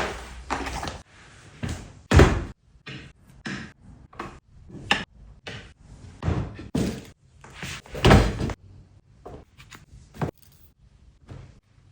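A series of irregular knocks, thuds and scrapes as household things are handled and set down, with the heaviest thuds about two seconds in and about eight seconds in.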